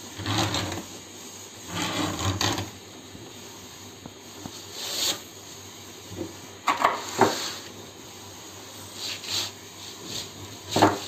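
Sharpened needle point of a hand-turned circle cutter scraping into a sheet of 0.8 mm sunmica laminate, scoring a round cut. It comes as several short scratchy strokes with pauses between them.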